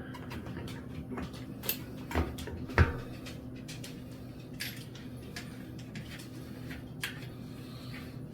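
Scattered light knocks and clicks from bicycle parts being handled during assembly of an e-bike's front wheel, about five in all, the sharpest about three seconds in, over a steady low hum.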